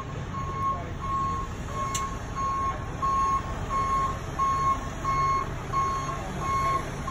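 Tow truck's reversing alarm beeping steadily, about three single-tone beeps every two seconds, over the truck's running engine.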